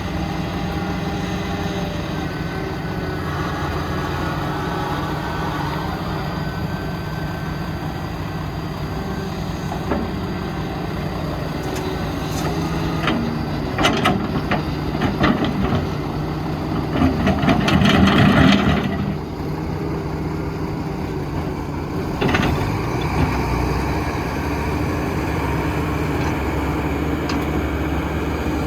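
Heavy diesel construction machinery running steadily, with several metallic knocks and a louder rough rumble lasting about two seconds, around eighteen seconds in.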